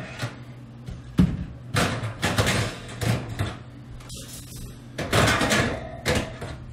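Metal oven racks being slid out of a Samsung NX58H9500WS gas range and set down, a series of scrapes and clanks of the racks on their guides and on each other.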